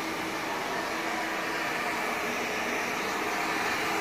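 Hand-held hair dryer blowing steadily.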